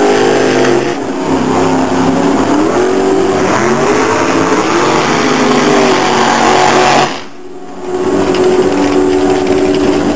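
Dragster engine revving hard, its pitch rising and falling again and again, then dropping away briefly about seven seconds in before holding a steady high pitch as the car runs down the strip.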